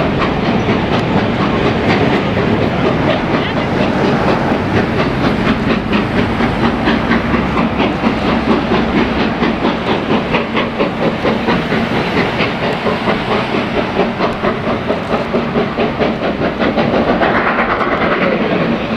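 Steam-hauled passenger coaches rolling past with a steady clickety-clack of wheels over the rail joints, as the Castle-class 4-6-0 steam locomotive 7029 Clun Castle works the train away, exhausting steam.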